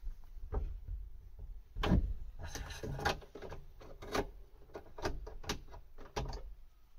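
Wing mirror being worked loose and lifted off a Ford Mondeo Mk5's front door: a run of knocks, clicks and rattles of plastic and metal against the door frame, the loudest knock about two seconds in.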